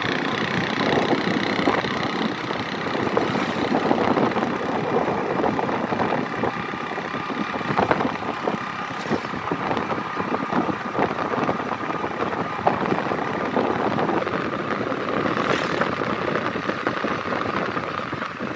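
A vehicle's engine running steadily while driving along a dirt track, with rumbling road noise and occasional knocks.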